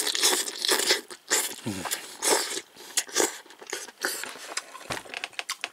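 Someone eating yukgaejang, spicy beef soup with vegetables, with irregular short slurps and chews. There is a brief low murmur about a second and a half in.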